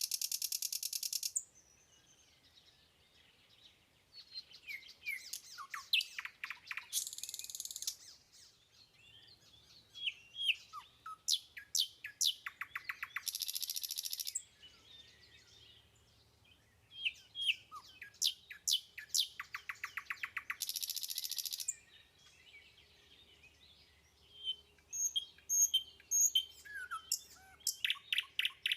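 A songbird singing the same phrase over and over, about every six seconds. Each phrase is a few sharp falling notes, a fast trill and a harsh buzz.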